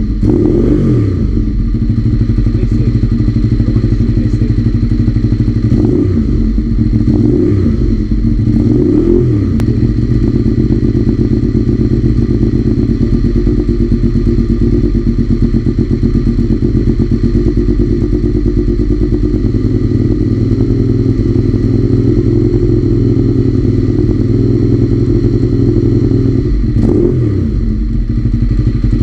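Ducati 848's 90-degree L-twin engine running through a freshly fitted Leo Vince titanium and carbon full race exhaust. It idles steadily, with quick throttle blips that rise and fall in pitch right at the start, three more from about six to nine seconds in, and another near the end.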